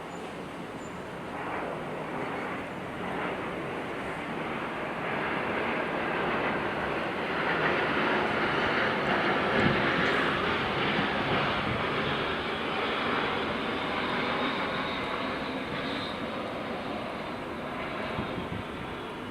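An airplane passing overhead: a broad rushing noise that swells to a peak about ten seconds in, then slowly fades.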